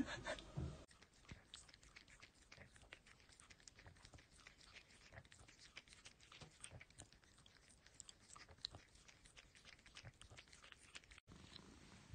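Near silence with faint, scattered small clicks and crackles.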